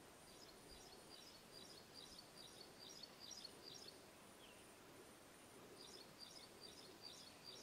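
Faint bird calls: a quick run of high chirps, about three or four a second, then a pause in the middle and a second run near the end.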